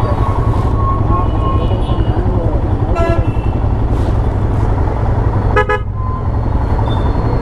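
Short motorcycle horn toots, one about three seconds in and another a couple of seconds later, over the steady low rumble of running motorcycle engines.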